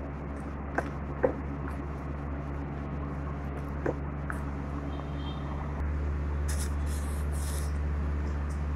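A few light taps of a stirring stick against a plastic bowl as slime is mixed, over a steady low hum that grows slightly louder about six seconds in.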